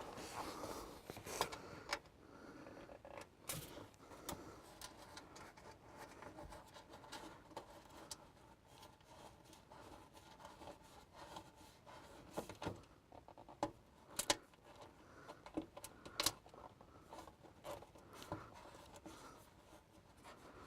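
Faint hand-work noise from fitting a winch solenoid's mounting hardware: rubbing and fumbling of small metal parts, with a few sharp clicks scattered through.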